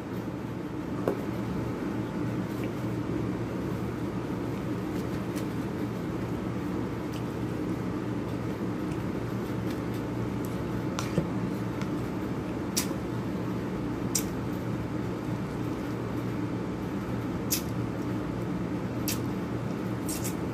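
A steady low hum, with a few faint, sharp clicks and ticks from eating with a spoon out of a foil tray.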